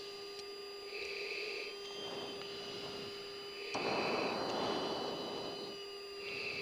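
F-16 cockpit sound over the intercom: a steady jet engine and systems hum with a constant tone, and a short hiss recurring every couple of seconds, with a louder rush of noise about four seconds in.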